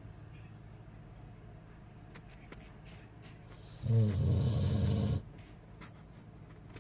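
American bulldog snoring: one loud, low, buzzing snore about four seconds in, lasting just over a second, between quieter stretches.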